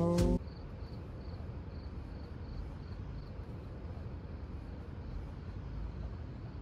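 A jazz tune cuts off just after the start, leaving steady outdoor night ambience: a low rumble like distant traffic, with faint high-pitched pulses repeating about three times a second through the first half.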